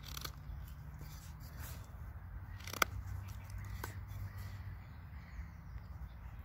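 Swiss Army knife blade cutting small chips out of a notch in a wooden stick: faint scraping and nicking strokes, with one sharp click about three seconds in and a fainter one about a second later.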